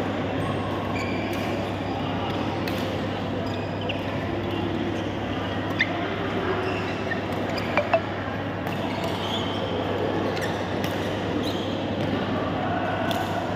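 Badminton rally: sharp racket strikes on a shuttlecock, one about halfway through and two in quick succession shortly after. Beneath them are a steady low hum and distant chatter.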